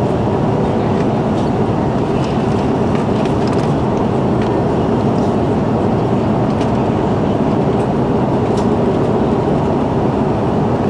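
Steady cabin roar of an Airbus A330-300 in flight, heard from a window seat: the Rolls-Royce Trent 700 engines and airflow making an even, low rushing noise, with a few faint clicks.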